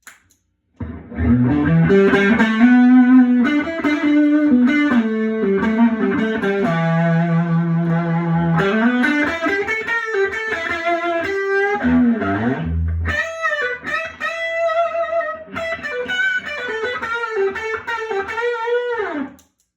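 Mexican Fender Telecaster played through a Tweed Deluxe amp with a boost pedal engaged: single-note lead lines with string bends, starting about a second in and ending on a slide down the neck.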